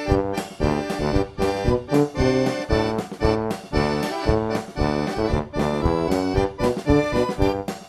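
Instrumental background music with a steady beat, its melody carried by a reedy instrument that sounds like an accordion.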